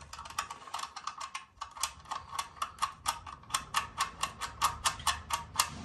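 Ratchet wrench clicking in quick, even strokes, about four or five clicks a second, as bolts are run in at a motorcycle's front wheel. The clicks start sparse and settle into a steady rhythm about two seconds in.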